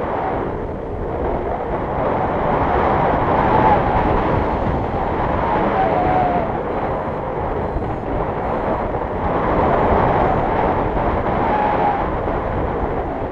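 Wind rushing over a GoPro microphone in flight under a tandem paraglider: a loud, steady rush that swells and eases, with a faint whistle in it now and then.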